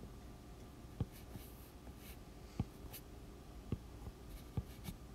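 Stylus drawing on an iPad's glass screen: faint, irregular taps of the tip with a few short soft scrapes as sketch lines are drawn.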